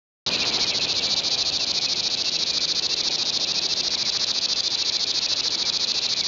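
Cricket chirping: a steady, high, rapidly pulsing trill that starts abruptly just after a brief dead silence.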